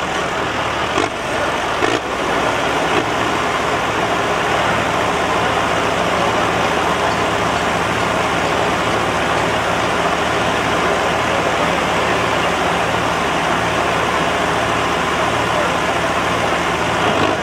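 Diesel engines of a John Deere 5310 and a Mahindra Arjun tractor running hard and steady under load as the two hitched tractors pull against each other in a tug-of-war.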